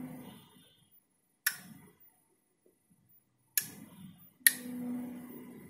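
Three sharp clicks from a vending-machine controller board's miniature PCB relays switching off one after another, the first about a second and a half in and the next two about two seconds and one second later, as each timed output of the tea-making sequence ends. A faint low hum follows the last click.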